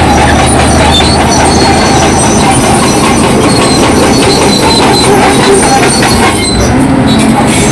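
Bulldozer working, its diesel engine running under load while the steel tracks clank and squeal in a dense, continuous metallic rattle.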